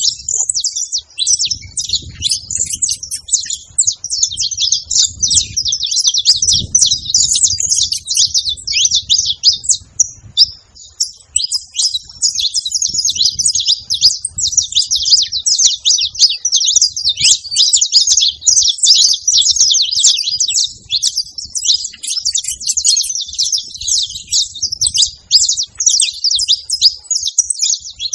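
Saffron finches chirping and singing together, a dense chatter of rapid, overlapping high chirps with scarcely a gap.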